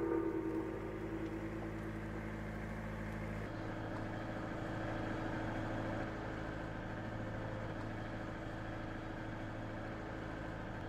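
Boat engine idling with a steady low drone. Its tone shifts slightly about three and a half seconds in.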